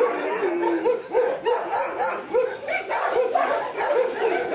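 A litter of puppies yipping and whining, many short high calls overlapping several times a second.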